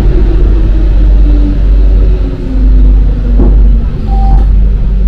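Alstom MP-05 rubber-tyred metro train running with a loud, steady rumble, its motor whine falling in pitch as the train slows. A single knock about three and a half seconds in, and a brief higher tone soon after.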